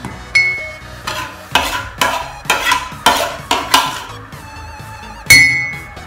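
A metal spoon clinking against a glass mug, a run of quick taps about twice a second as grated bitter kola is knocked off into the mug. Two sharper clinks, one near the start and one near the end, ring briefly.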